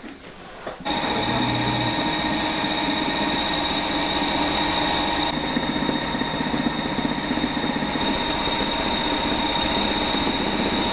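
Belt-driven electric rice mill grinding soaked rice into a wet slurry. It starts abruptly about a second in and then runs steadily, with a high whine over the grinding noise.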